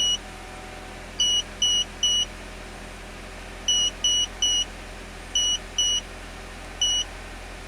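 Short high-pitched electronic beeps from an Autel AL539 scan tool's keypad as its buttons are pressed to navigate the menus, about ten in all in quick runs of one to three, over a steady low hum.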